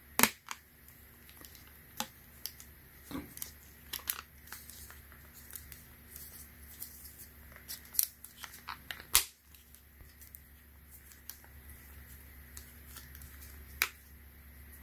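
Scattered sharp clicks and taps of a hard plastic protective case being fitted and pressed onto the upper half of a folding phone, with soft handling noise between them.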